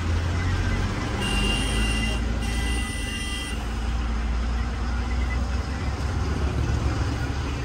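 Bus engine and road rumble from a moving bus. About a second in, a horn sounds twice, two blasts of about a second each with a short break between.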